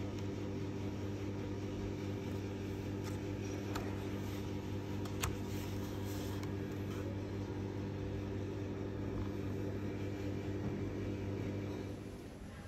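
Steady machine hum with several even tones, like a running fan or cooling unit, with a few light clicks, one sharper about five seconds in. The hum drops away near the end.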